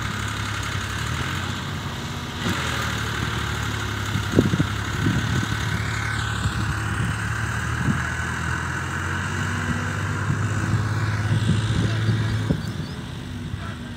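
Tractor diesel engine idling steadily, a little louder from about two and a half seconds in until near the end.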